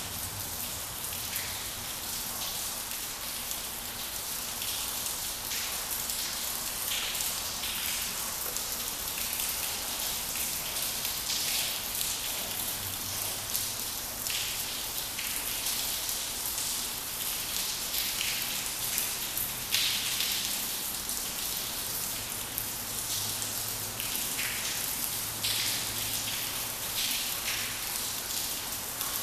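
Steady rain pattering on surfaces, with scattered louder drops crackling irregularly.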